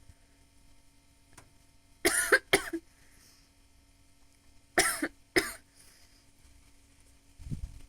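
A woman coughing in two short fits of two coughs each, about three seconds apart: a smoker's cough brought on while smoking.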